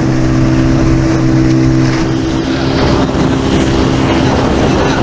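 Small open motorboat's engine running steadily underway, a constant drone with wind and water rushing over it.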